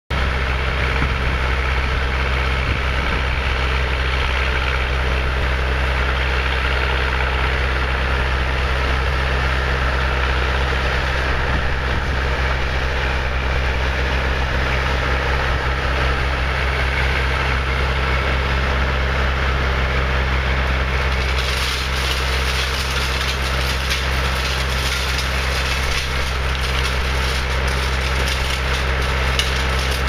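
Scat Trak tracked skid steer's engine running steadily under load while its snowblower attachment chews through deep snow and throws it. About two-thirds of the way through, a rougher hiss with crackling joins in.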